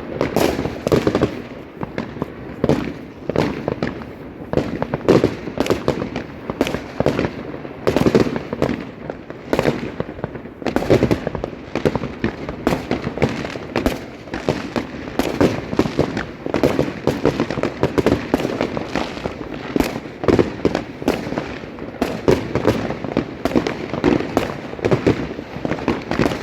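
Fireworks and firecrackers going off in a dense, continuous barrage of overlapping bangs and crackles, several a second.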